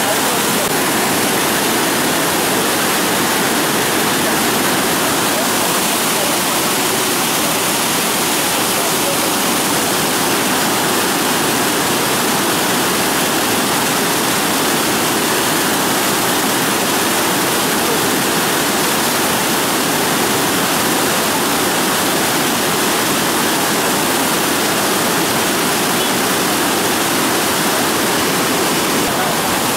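Floodwater from a lake's open spillway sluice gates rushing and churning past the concrete gate piers: a loud, steady rush of turbulent water.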